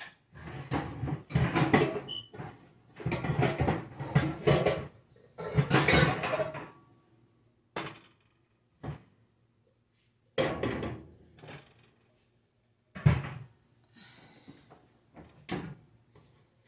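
Kitchen pots, pans and cupboard doors being handled: dense clattering and rattling for several seconds, then a few separate knocks and thuds.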